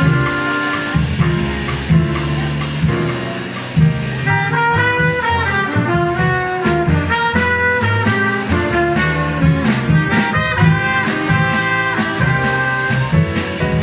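Small jazz band playing live: trumpet and alto saxophone sound the melody together over piano, upright bass and drums with cymbals. About four seconds in, the horn line turns into a quick run of notes.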